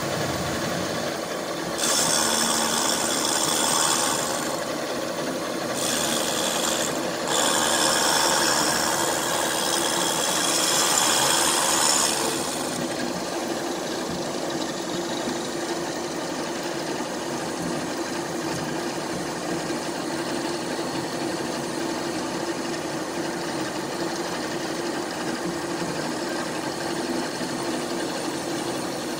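Milling machine running steadily as a small end mill cuts the cast-iron combustion chambers of a Ford Kent cylinder head. For the first twelve seconds or so a loud hiss sits over the machining, dropping out twice briefly.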